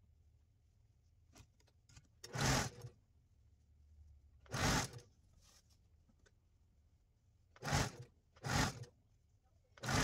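Electric domestic sewing machine stitching in five short bursts, each about half a second long, with pauses between them as the fabric is repositioned.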